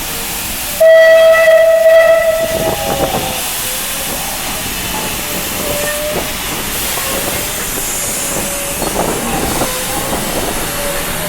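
Vulcan Foundry class 12E steam locomotive's whistle blowing once for about a second and a half, over a steady hiss of steam. Fainter squeals come and go after it.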